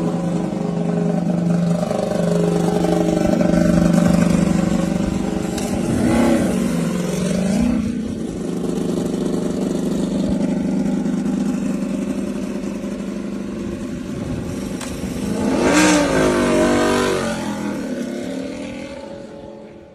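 Ducati Panigale V4 R superbike's V4 engine idling with a few throttle blips, the biggest about sixteen seconds in, then fading as the bike pulls away.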